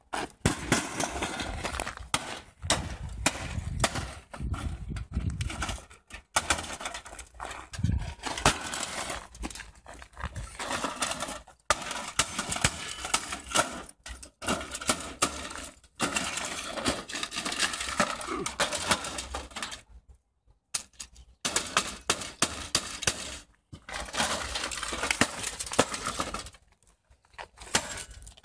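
A hammer repeatedly striking an old desktop computer tower and its insides, with many sharp impacts and the breaking of parts. The blows come in stretches separated by several short silences.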